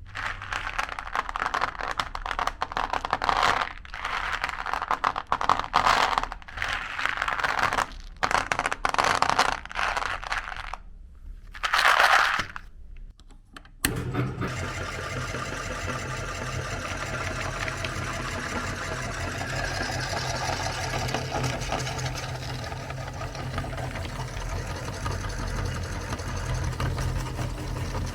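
Irregular bursts of crinkling and rustling with short pauses. About halfway through, an electric meat grinder switches on and runs steadily with a low motor hum.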